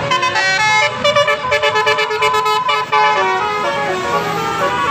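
Bus 'telolet' horn, a set of multi-tone musical horns playing a quick tune of short notes that jump up and down in pitch.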